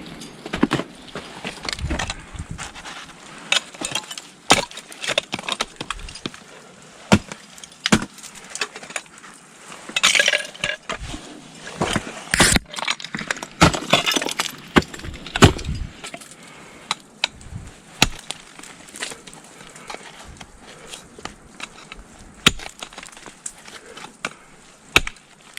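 Ice axes and crampon points striking into ice in irregular sharp blows as a climber works up a frozen pitch.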